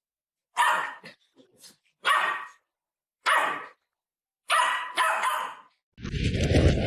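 A dog barking: about five loud, separate barks roughly a second apart, the last two close together. Near the end, a different steady noise takes over.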